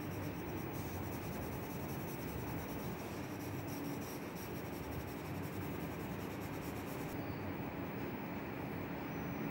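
Graphite pencil scratching on drawing paper as a portrait is shaded, over a steady background hiss and low hum. The scratching stops suddenly about seven seconds in.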